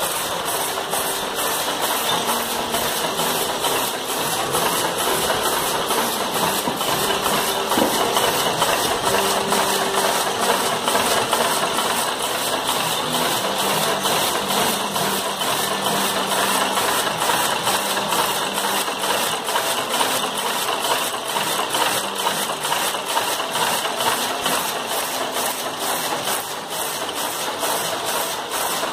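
Power loom with a four-colour weft selector running at speed: a steady mechanical clatter beating in a fast, even rhythm, one beat per weft pick.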